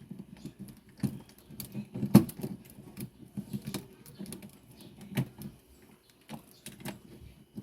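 Irregular clicks, knocks and small rattles of hands working on washing machine parts while a rubber stopper is taken out.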